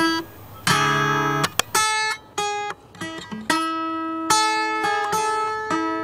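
Guitar music: a chord struck about a second in, then single picked notes one after another, each left ringing.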